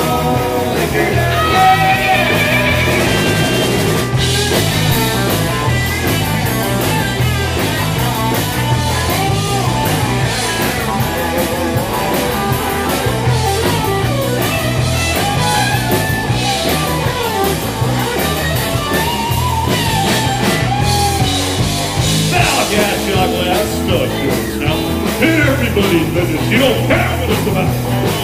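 Live rock band playing a song: electric guitar, electric bass and drum kit at a steady beat, with a man singing lead.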